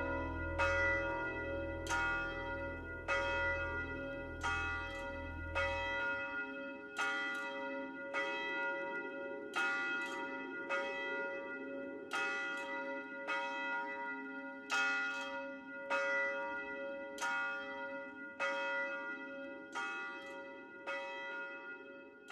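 Church bells ringing, a steady run of strikes about every two-thirds of a second that slowly fades toward the end. A low hum runs underneath and stops about six seconds in.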